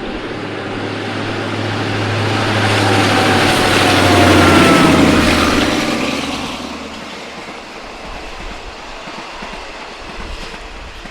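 A train passing close by, growing louder to a peak about four seconds in and then fading away, with a steady low hum and a tone that falls in pitch as it goes past.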